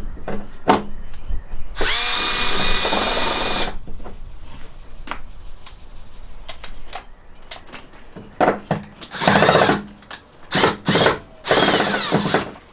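Power drill running in bursts: one run of about two seconds that spins up and holds a couple of seconds in, then three shorter runs near the end, with clicks and knocks of handling in between.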